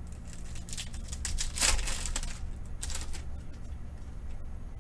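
Foil wrapper of a trading-card pack crinkling and rustling in the hands as the pack is opened and the cards taken out, in three bursts, the loudest a little under two seconds in. A steady low hum runs beneath.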